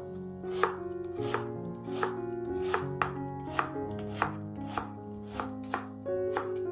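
Chef's knife dicing an onion on a wooden cutting board: quick, regular chopping strikes, about three a second, over background piano music.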